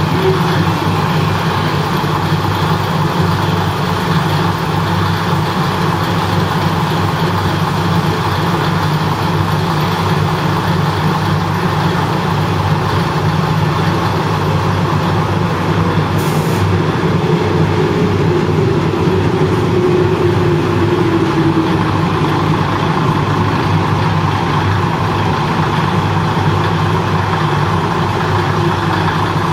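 Diesel railcar engine idling steadily: a constant low hum that holds level with no change in speed.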